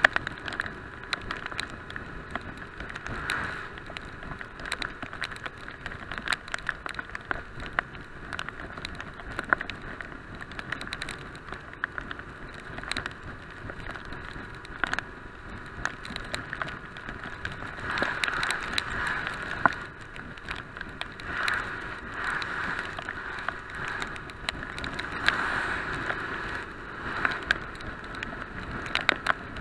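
Raindrops tapping on a handlebar-mounted action camera while riding a 1998 BMW R850R motorcycle in heavy rain, over a steady muffled rush of wind and wet-road noise with the motorcycle running underneath. The noise swells a few times later on.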